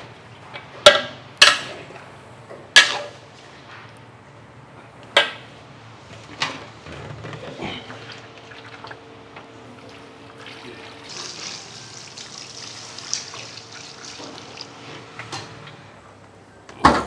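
Water pouring steadily from a large plastic gallon water jug into a wok of raw chicken pieces and spice paste. Several sharp knocks come in the first five seconds, and one loud knock comes just before the end.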